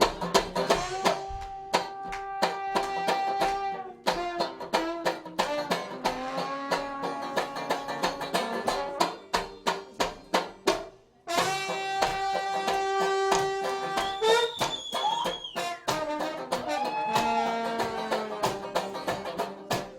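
Brass band music: horns hold long notes over a steady drum beat. The band breaks off briefly about halfway, then comes back in with a long held note.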